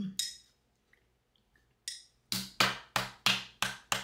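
Palm smacking the bottom of an upturned banana ketchup bottle to knock the ketchup out: a quick, even run of sharp slaps, about three a second, starting a little over halfway in.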